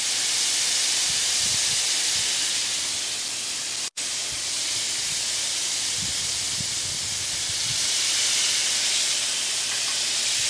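Birria tacos frying on a hot Blackstone flat-top griddle: a steady, loud sizzle that cuts out for an instant about four seconds in.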